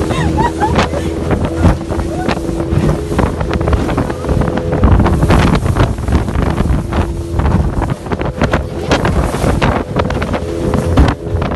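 A small fiberglass boat's outboard motor runs steadily under way through choppy sea. The hull knocks and splashes irregularly over the waves, and wind buffets the microphone.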